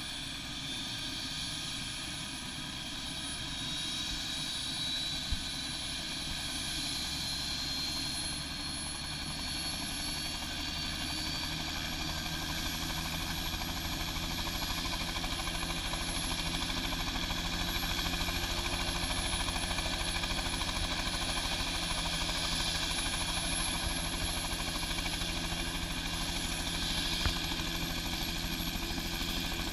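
Bell 206 JetRanger helicopter running on the ground, its Allison 250 turboshaft and main rotor turning steadily. The turbine whine rises slowly in pitch over the first ten seconds, and the sound grows somewhat louder about halfway through as the engine spools up.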